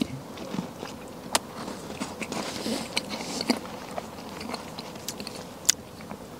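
A person chewing a mouthful of about two tablespoons of snow, letting it melt in the mouth, with irregular small crunches and wet mouth clicks.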